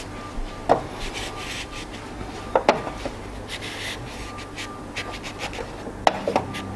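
Thick fabric rubbing and scrunching as a sewn drawstring tube is worked by hand and turned right side out. A few sharp clicks or taps come in among the rubbing, twice as close pairs.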